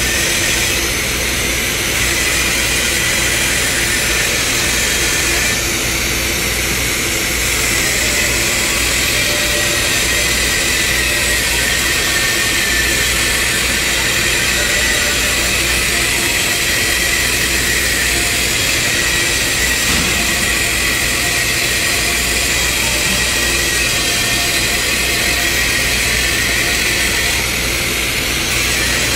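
Steady hiss of a welding arc laying a weld on a large steel pipe, over a continuous low machine hum.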